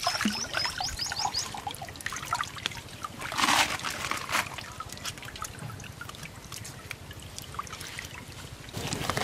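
Muddy water splashing and dribbling as a swamp eel on a hook line is hauled out and thrashes at the surface, with a louder splash about three and a half seconds in.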